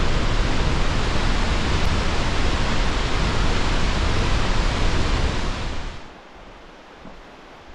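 Waterfall rushing: a loud, dense, steady roar of falling water that cuts off abruptly about six seconds in, leaving a much fainter, steady rush.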